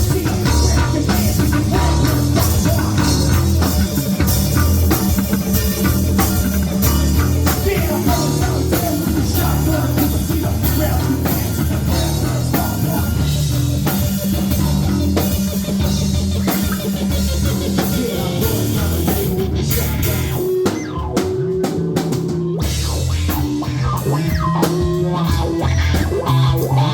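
Live band playing rock music with a drum kit and guitar. About twenty seconds in, the drums and cymbals drop out for roughly two seconds, then come back in.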